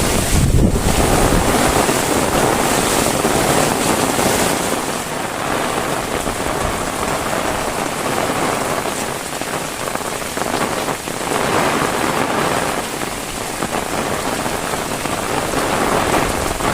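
Heavy rain falling steadily and densely, with wind buffeting the microphone for about the first second.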